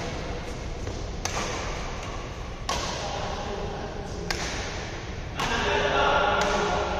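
Badminton rackets striking a shuttlecock during a rally: five sharp hits about a second to a second and a half apart. Voices come in near the end.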